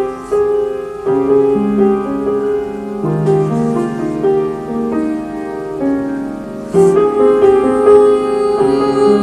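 Solo upright piano playing a slow ballad, a melody over held chords, growing louder about seven seconds in.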